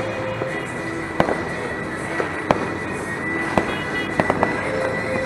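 Fireworks and firecrackers going off across the area: a handful of sharp cracks over a steady noisy background, three of them in quick succession about four seconds in.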